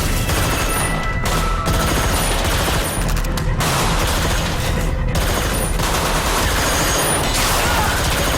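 Sustained rapid gunfire, many shots running together, over background music in a TV action soundtrack.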